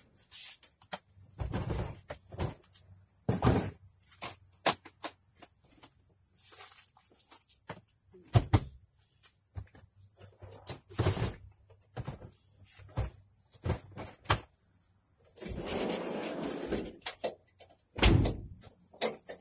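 Insects chirring in a steady high, fast-pulsing chorus, with scattered knocks and rustling close to the microphone.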